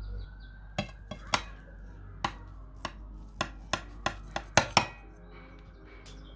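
Kitchen utensils clinking and knocking against dishes: about a dozen sharp, separate strikes, bunching closer together towards the end.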